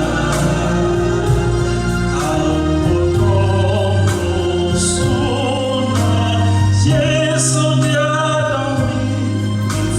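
A choir singing a slow gospel hymn with instrumental accompaniment, long held chords moving every second or two over a steady bass.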